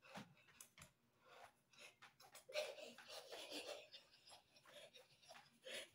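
Faint scuffs, taps and rustling of a person dancing, with a louder breathy rush about two and a half seconds in.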